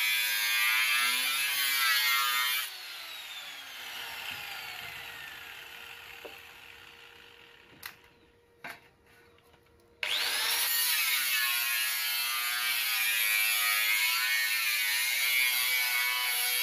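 Angle grinder cutting metal, its pitch wavering under load. It is switched off about two and a half seconds in and winds down with a falling whine. After a couple of light clicks it is switched on again about ten seconds in, spinning up with a rising whine, and cuts on.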